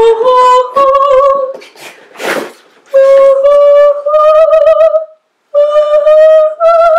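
A single voice singing long, sustained notes with vibrato in three phrases, each climbing a little higher in pitch, with a short noisy sound between the first two phrases.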